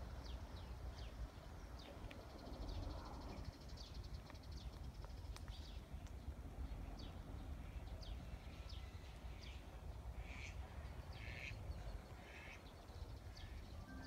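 Birds calling, with many short, quickly falling high chirps, and three harsher, crow-like caws about a second apart near the end. A faint steady low rumble runs underneath.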